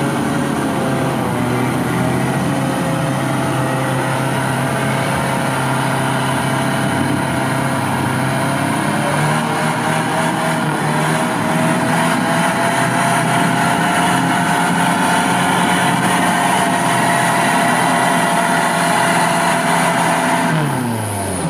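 Pickup truck's engine running hard under load as it pushes through deep mud, revs held high with a slowly rising pitch, then falling away near the end.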